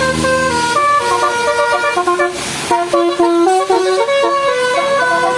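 Telolet basuri musical bus horn playing a quick tune of short stepped notes.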